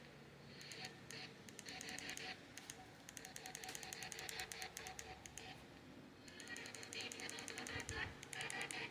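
Faint, rapid clicking of typing on a computer keyboard, in three runs of a couple of seconds each with short pauses between.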